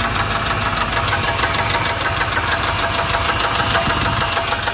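An engine running with a rapid, even knocking, about eight knocks a second, over a steady low hum. The sound starts and stops abruptly.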